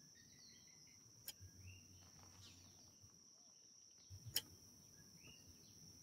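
Near silence: a faint steady high-pitched whine with a few faint chirps, and two soft clicks, one about a second in and one past four seconds.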